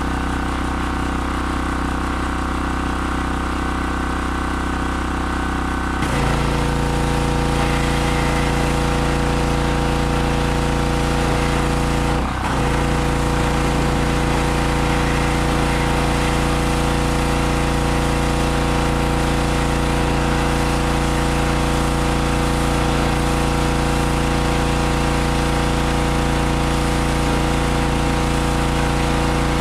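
Harbor Freight gas pressure washer's 160 cc engine running steadily. About six seconds in the sound shifts and gains a hiss on top, and it dips briefly about twelve seconds in.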